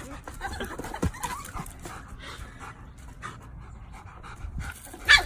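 A dog panting, with a dull thump about a second in and a short, loud sharp sound near the end.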